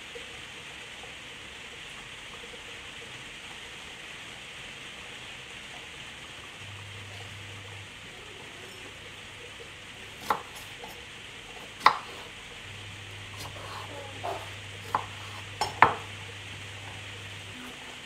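Kitchen knife cutting strawberries and striking a wooden chopping board: a handful of sharp clicks in the second half, over a steady hiss.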